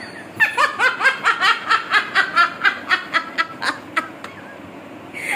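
A person laughing hard: a long run of rhythmic laughter, about four to five bursts a second for nearly four seconds, trailing off near the end.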